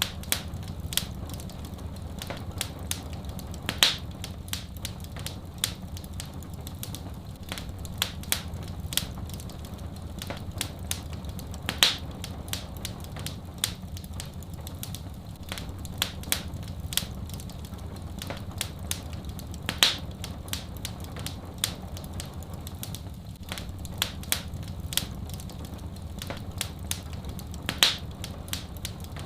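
Wood fire crackling steadily with many small snaps and a louder pop about every eight seconds, over a steady low rumble.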